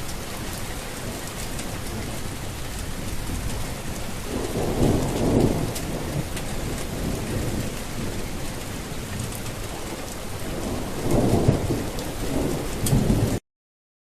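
Steady heavy rain with two low rolls of thunder, one about four seconds in and another near the end. The sound cuts off suddenly just before the end.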